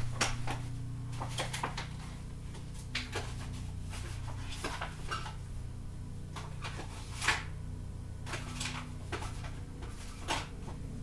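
Scattered light knocks and clatters of small household items being picked up, moved and set down on a wooden chest of drawers and shelf, the sharpest knock about seven seconds in, over a steady low hum.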